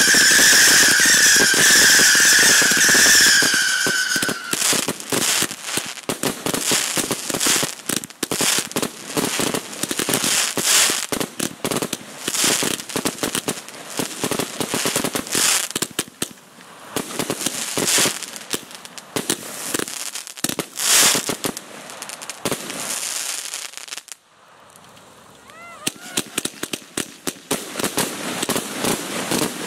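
Fireworks display: a shrill whistling firework sounds for the first few seconds, falling slightly in pitch, then a rapid run of shell bursts and crackling. The bursts ease into a brief lull about 24 seconds in before more crackling starts near the end.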